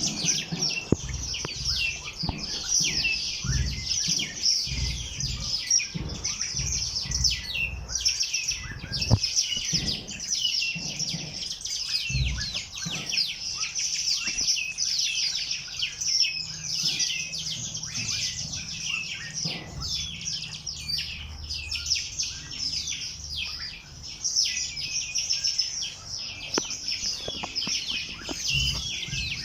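A chorus of many small birds chirping and twittering, their rapid, overlapping calls forming a continuous high-pitched chatter.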